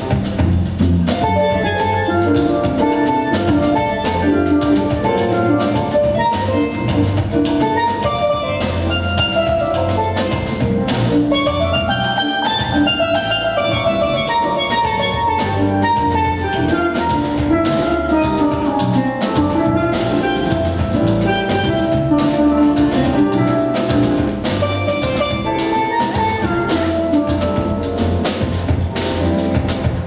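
Small jazz band playing live, with a steelpan carrying quick runs of notes over drum kit, congas, electric bass and keyboard.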